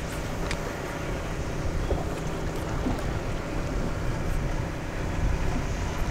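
Wind buffeting the microphone in a low, uneven rumble over the steady wash of sea water against jetty rocks.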